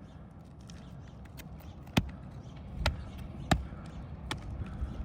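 Hand tool striking an asphalt shingle roof: a few sharp, separate knocks spaced irregularly, the loudest about two seconds in and again about three and a half seconds in, with fainter taps between, during work to reinstall a creased shingle.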